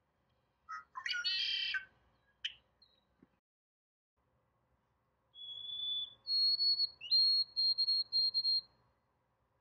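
A red-winged blackbird's harsh, buzzy song about a second in. From about five seconds, a white-throated sparrow's clear whistled song: a lower note, a higher held note, then a quick run of repeated notes on one pitch.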